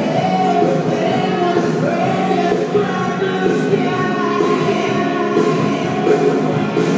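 Music with a singing voice, playing steadily.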